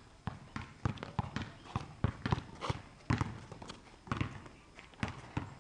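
Basketball dribbled on a hard outdoor court: repeated sharp bounces, about three a second, at an uneven rhythm.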